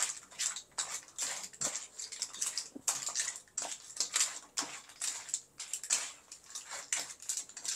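Razor clams being stir-fried in a pan with a spatula: irregular clattering and scraping of shells against the pan over a high sizzle.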